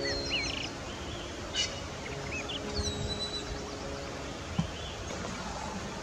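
Small birds chirping in short calls that glide up and down, over a steady outdoor hiss, with soft background music of held notes. A single sharp tap about four and a half seconds in.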